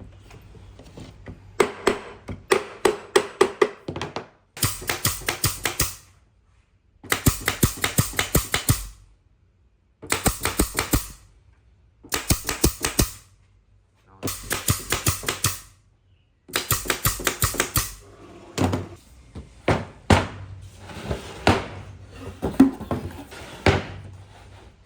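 Rapid knocking on wood, about six sharp strikes a second, coming in short bursts of a second or two with brief pauses between them.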